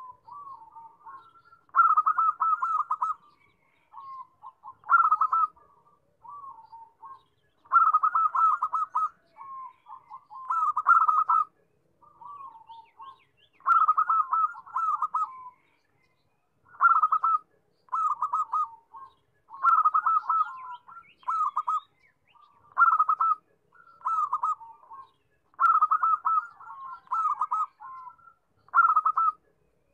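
Zebra dove (perkutut) singing: phrases of rapid, stuttering coo notes, a loud trill trailing into softer, lower notes, repeated every two to three seconds.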